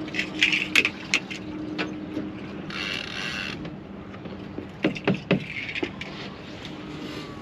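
Fishing rod and conventional reel being worked during a recast: a scatter of sharp mechanical clicks and knocks, a short whir about three seconds in, and a cluster of heavier knocks about five seconds in, over a faint steady low hum.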